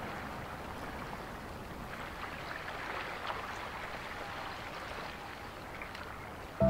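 Steady outdoor woodland ambience: an even hiss with faint scattered ticks and crackles. A music chord comes in loudly right at the end.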